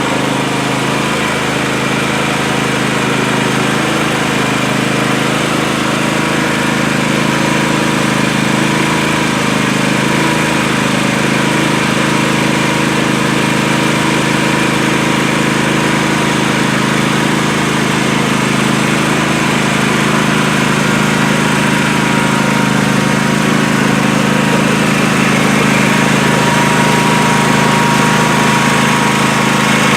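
Riding lawn mower engine running at a steady speed, growing slightly louder toward the end.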